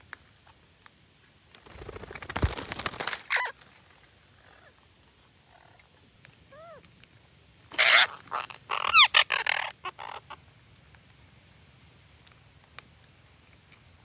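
Parakeets at a tree-hole nest giving harsh, screeching calls in two bouts, about two seconds in and again louder around eight to ten seconds in, with a short single call between.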